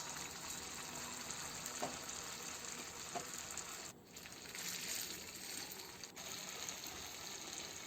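Rice-flour-battered date and coconut balls frying in hot oil: a steady sizzle that dips briefly about four seconds in.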